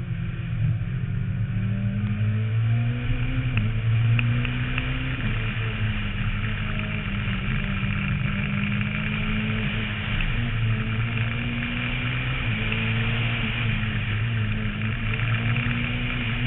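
Renault Mégane rally car's engine under hard acceleration, its note repeatedly climbing and then dropping abruptly at gear changes, heard from a roof-mounted camera with wind and road noise.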